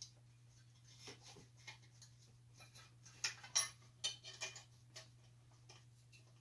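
Small metallic clicks and taps of brass lamp socket parts being handled and fitted together, scattered and irregular, with the loudest cluster a little past the middle.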